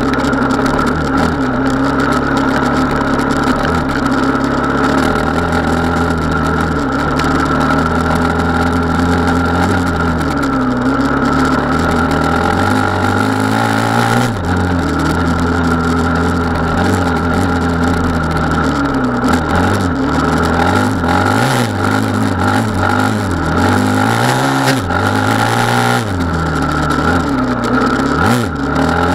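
Gas Gas 450 Wild HP enduro motorcycle's single-cylinder four-stroke engine running hard on a dirt track, its pitch rising and falling as the throttle is opened and closed, more often in the second half.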